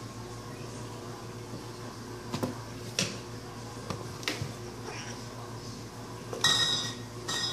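A Savannah cat scrambling on and around a cardboard case of beer: scattered light knocks and taps as its paws hit the box. Near the end comes a brief high-pitched ring, sounded twice.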